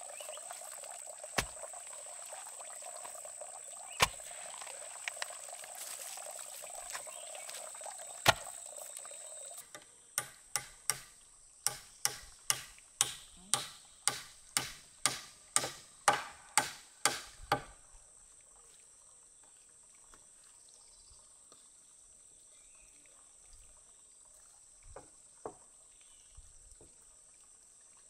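A hammer striking nails into a log platform: about fifteen sharp blows, roughly two a second, over some eight seconds. Before it, a steady rush of running water with a few knocks.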